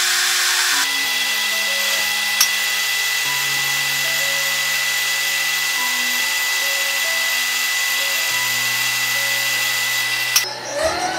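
Steel rifle barrel being machined: first a lathe cutting with an even hiss, then, after an abrupt change, a milling machine's end mill cutting a flat into the barrel with a steady high whine. Background music plays underneath. Near the end the sound cuts off and a motor spins up with a rising whine.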